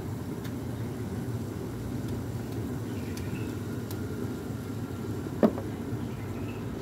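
Wooden spoon stirring sliced bitter melon and shrimp in a metal wok, with a few light clicks over a steady low rumble, then one sharp knock about five and a half seconds in as the spoon is tapped on the pan.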